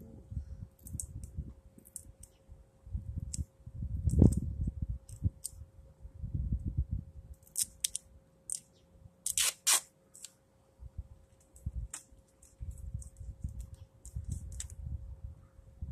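Duct tape being pulled off the roll in a series of short rasping rips, the loudest about nine and a half seconds in, as it is wrapped around a cable. Low rumbles come and go underneath, with a faint steady hum.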